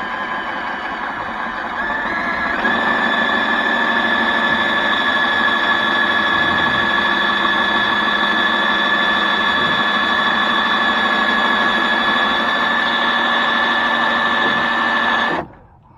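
Electric drill running with a screw-extractor bit, drilling into a seized molding screw on a car body. Its motor whine rises in pitch over the first couple of seconds, holds steady for over ten seconds, then stops abruptly near the end.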